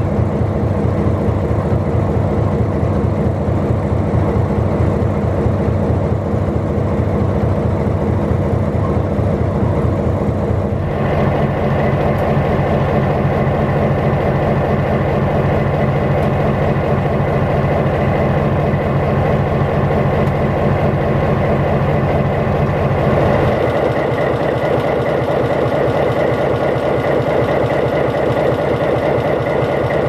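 Diesel switcher locomotive engine idling steadily with an even low pulse. Its tone shifts abruptly twice, about a third of the way in and again past three quarters.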